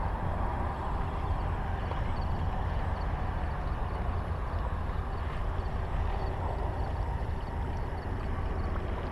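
Steady rumble of interstate highway traffic, with faint high ticks about twice a second.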